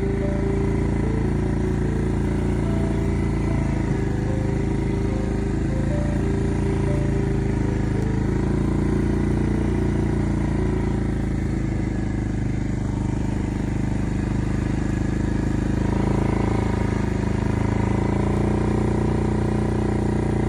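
A motor engine running steadily, its pitch shifting a little.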